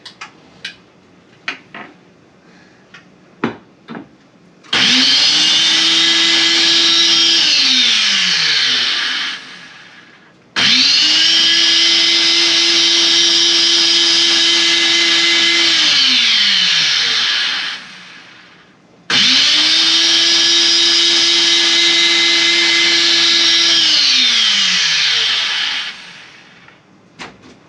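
Electric countertop blender run three times, in bursts of about five to seven seconds, pureeing hot peppers, garlic and shallot with a little water. Each time the motor comes up to speed at once and its pitch falls away as it spins down. A few light clicks and knocks come before the first run.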